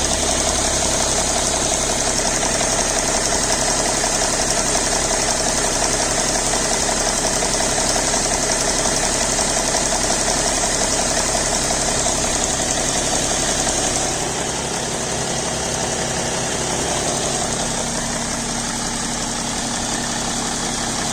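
BMW 525d straight-six diesel engine idling, with the tick/click that the owner hears only while the engine is cold and that goes away once it reaches about 80 °C. The sound drops a little in level about fourteen seconds in.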